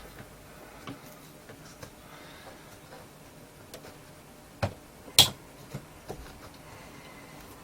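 Small clicks and taps of hands working a small loudspeaker's thin metal frame and loose magnet, with two sharper knocks about four and a half and five seconds in. The bent frame is being worked to re-seat a detached magnet that has been catching the cone.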